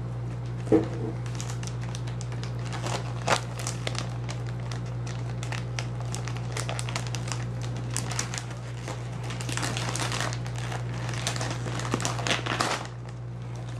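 A plastic gift bag crinkling and rustling as it is squeezed and handled, with irregular crackles and a couple of sharper snaps. A steady low hum runs underneath.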